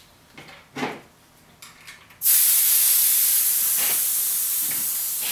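Air hissing out of a bicycle tyre's valve as the tyre is let down for removal, starting suddenly about two seconds in and slowly fading. A few light clicks of handling the wheel come before it.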